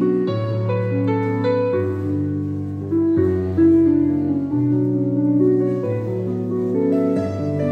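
Recorded instrumental music for a gato, an Argentine folk dance: a melody of held notes over a stepping bass line.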